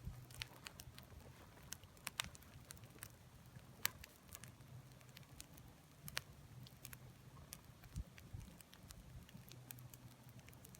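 Bonfire of dry tree limbs crackling, with irregular sharp pops and snaps as the wood burns, over a faint low hum.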